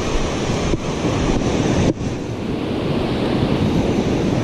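Ocean surf breaking and washing up a sandy beach, a steady rushing hiss, with wind rumbling on the microphone.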